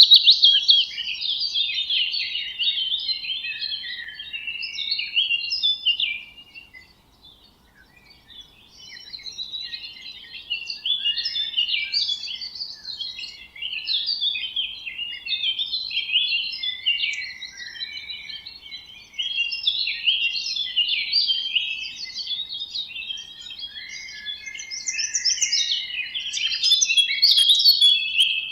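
Songbirds singing: fast, continuous chirping and warbling, with a brief lull about seven seconds in.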